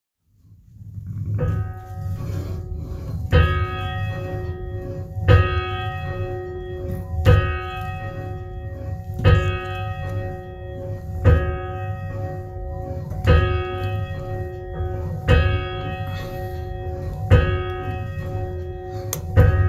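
Church bell tolling about ten times, one stroke roughly every two seconds, each ringing on into the next over a low rumble.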